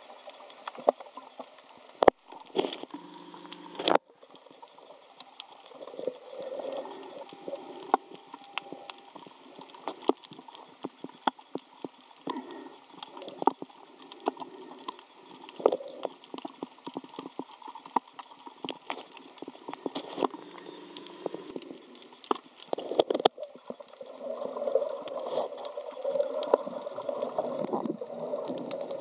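Underwater water sound heard through a submerged camera: gurgling and sloshing, with scattered sharp clicks and crackles. The water rushing grows louder for the last few seconds.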